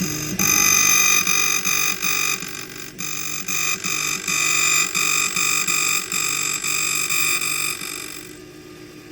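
Key-cutting machine cutting a Toyota door key blank: a steady high-pitched whine that pulses in a quick even rhythm as the cutter works the blade, stopping about eight seconds in.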